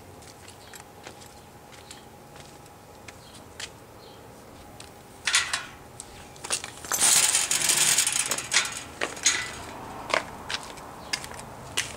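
Someone pushing close past dry shrubs on foot: scattered faint crunches and clicks, a brief burst of rustling about five seconds in, then a few seconds of louder rustling and crunching about seven seconds in.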